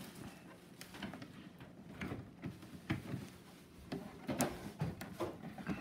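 Scattered clicks and light knocks of hard plastic as hands work the hatch latch and hull of a Pro Boat River Jet RC jet boat, trying to get the hatch off.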